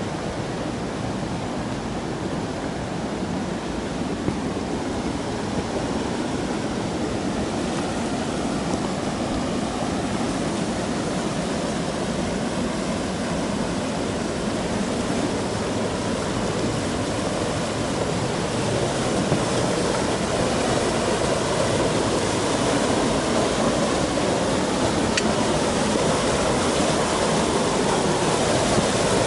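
Rushing water of a small waterfall, a steady hiss that grows gradually louder.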